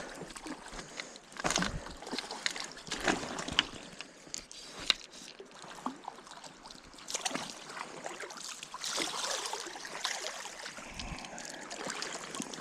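Water sloshing and splashing irregularly over a running stream, as a small hooked trout is played in to hand.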